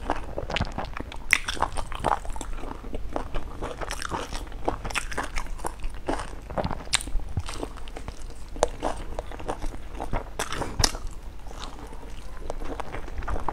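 Close-up eating sounds: chewing and biting into a stuffed flatbread, with many short crisp crunches.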